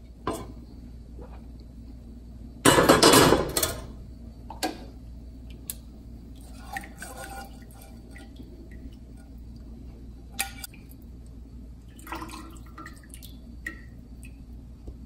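Metal tongs clinking against an enamelled stock pot and a ceramic plate as poached chicken pieces are lifted out of the broth, with broth dripping. There is a louder clatter about three seconds in, then scattered single clinks, over a steady low hum.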